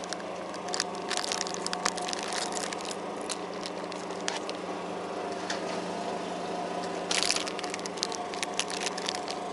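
Crinkling and crackling of a plastic snack packet being handled, in scattered crackles with a dense burst about seven seconds in, over the steady hum of the boat's engine running.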